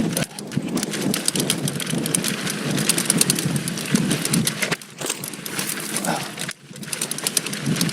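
A 2019 Giant Stance 2 mountain bike riding fast down a loose dirt singletrack: tyres crunching and skittering over dirt and stones, with a dense crackle of rattling clicks. The noise drops off briefly twice near the end.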